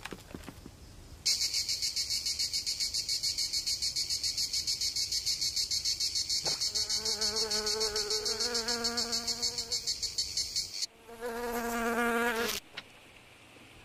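A fast, high insect trill like a cricket's starts about a second in and stops a few seconds before the end. About halfway through, a fly's wing buzz joins it, a wavering droning hum that carries on alone for a moment after the trill stops, then cuts off.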